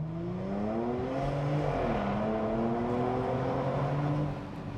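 Porsche Macan with sport exhaust accelerating, heard from inside the cabin. The engine note climbs, dips briefly at a PDK upshift just under two seconds in, climbs again, then eases off near the end.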